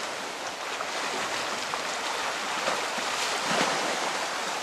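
Steady wash of small waves and water lapping on a lake, a continuous even hiss with faint splashy crackles.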